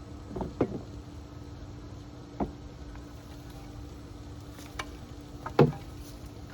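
A garden digging tool driven into soil while digging up potatoes: four short, sharp thuds, the loudest near the end, over a faint steady hum.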